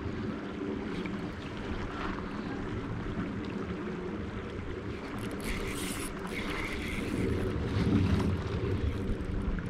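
Creek water rippling over a shallow riffle around an anchored kayak, with wind buffeting the microphone.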